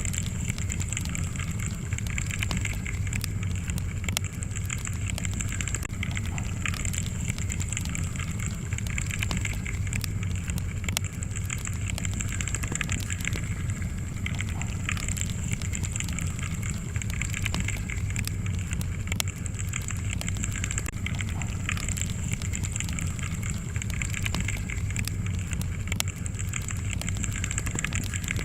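Fireplace fire crackling steadily, with frequent small sharp pops over a low, even rumble.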